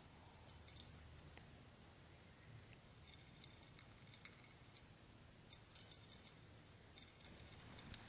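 Mexican jumping beans faintly ticking and clicking against a ceramic plate as the moth caterpillars inside them jerk the seeds about: scattered tiny clicks coming in irregular clusters.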